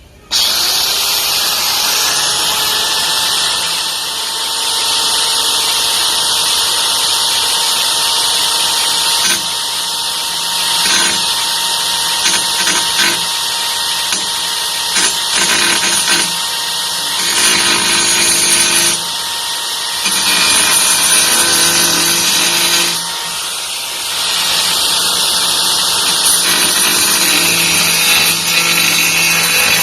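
Titanium AG710 710 W angle grinder switched on about a third of a second in and running hard: a steady motor whine under a loud, bright hissing noise that swells and eases as the load on the disc changes.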